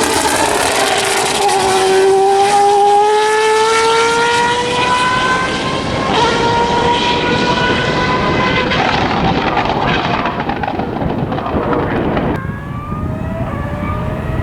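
Zytek 3.4-litre V8 of an A1GP-derived two-seat formula car accelerating under load, its pitch climbing slowly over several seconds. The high end of the sound drops away abruptly about twelve seconds in, leaving a duller engine note.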